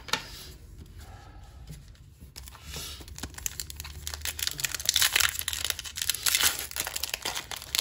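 Pokémon trading card booster pack wrapper crinkling as it is handled and torn open, the crackling growing dense and loudest a little past halfway.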